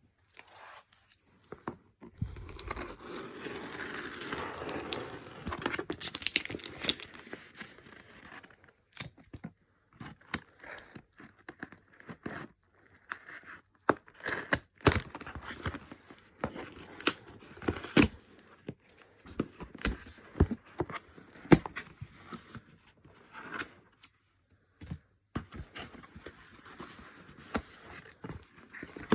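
Packaging being handled and opened: crinkling and tearing, with a long rustle early on followed by many short crackles and snaps.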